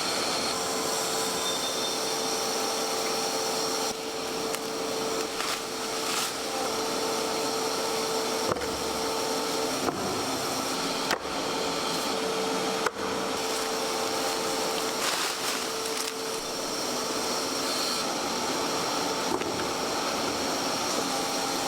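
Large electric meat-processing machine running steadily, a loud motor noise with a constant hum and high whine, broken by a few short knocks near the middle.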